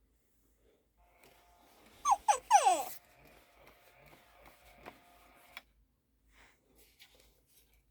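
FurReal panda toy's electronic voice making a cub-like vocal sound: a quick run of four or five falling squeaky notes about two seconds in, over a faint steady hum that stops with a click a few seconds later.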